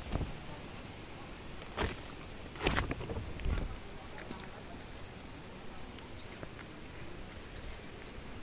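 Footsteps on stony garden soil and leaves brushing past, with a few louder rustles about two to three and a half seconds in.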